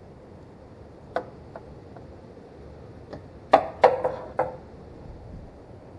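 Metal tools and engine parts clinking and knocking together as they are handled in an engine bay: a single sharp click about a second in, then a quick run of four or five louder clanks with a short ring a little past the middle.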